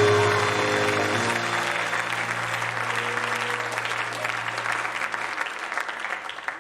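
Congregation applauding as the band's final held chord rings out and fades. The clapping thins and stops near the end.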